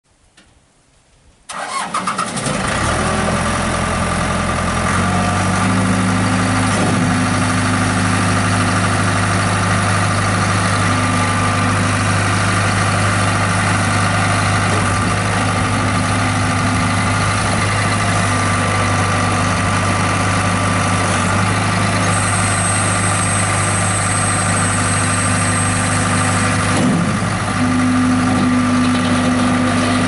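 Case 1845 skid steer loader's engine starting about a second and a half in, then running steadily. Its speed steps up a few seconds after the start, and the note changes again near the end.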